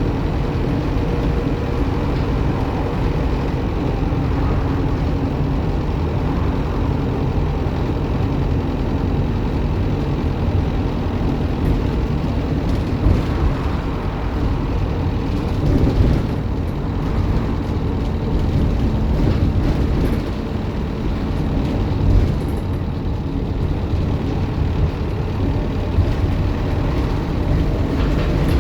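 Optare Solo M950 single-deck bus engine running steadily with road noise, a turbocharger whine faintly present, and a few brief louder bumps along the way.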